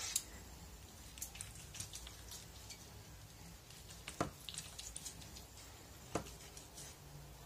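Kitchen knife scoring the skin of a boiled pork knuckle: faint wet slicing with scattered soft ticks, and two sharper clicks about four and six seconds in where the blade meets the plastic cutting board.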